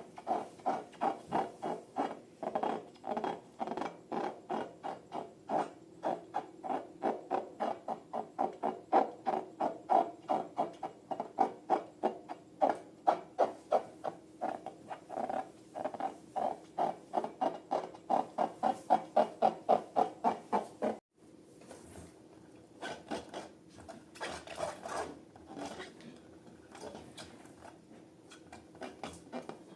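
Slime being worked by hand, a rhythmic squishing at about three or four squelches a second. About two-thirds of the way through it breaks off abruptly and gives way to softer, irregular sticky clicks.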